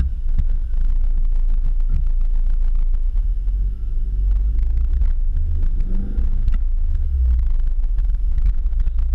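Automatic car wash dryer blowing air down over the car, a loud steady rumble of air buffeting the camera, with a brief rising and falling whine about six seconds in.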